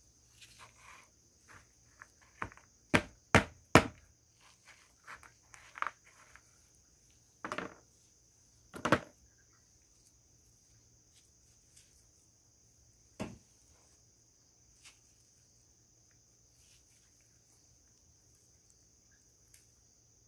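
Heart-shaped naphthalene mothballs crushed in a gloved hand: a run of sharp crunches and snaps in the first nine seconds, loudest at about four and nine seconds, then a few single crackles.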